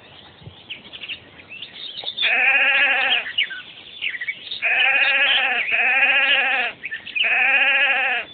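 Sheep bleating: four long, wavering bleats, two of them back to back, beginning about two seconds in, with faint bird chirps before them.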